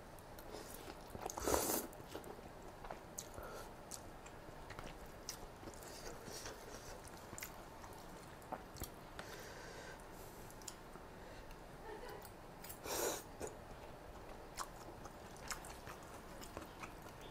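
A person chewing a mouthful of khanom jeen rice noodles in coconut-milk curry close to the microphone, with many small wet mouth clicks. Two louder half-second bursts of noise stand out, about a second and a half in and again near thirteen seconds.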